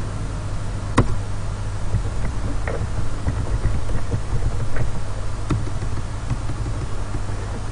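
Steady low hum and hiss of a recording setup, with a few scattered sharp clicks from a computer keyboard as text is typed. The loudest click comes about a second in.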